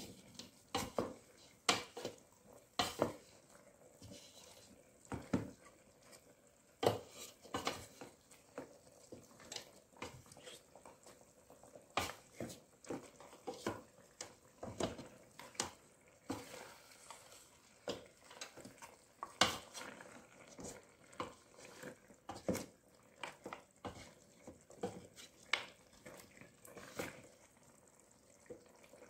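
Wooden spatula stirring chunks of lamb in a metal cooking pot, with irregular knocks and scrapes against the pot's side and bottom.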